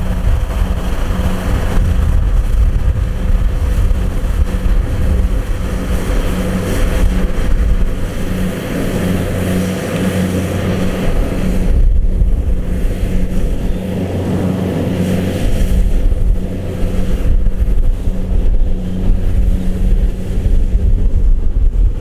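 Combine harvester's diesel engine running steadily under load while it cuts and threshes standing rice, a constant low drone with an even hum.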